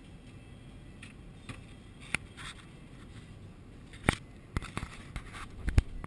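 Low road and engine rumble heard from inside a moving car's cabin, with scattered sharp clicks and knocks, the loudest about four seconds in and near the end.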